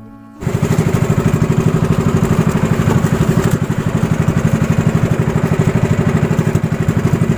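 Outrigger fishing boat's gasoline engine running steadily under way, a loud, rapid, even pulsing over the rush of wind and water. It cuts in abruptly about half a second in.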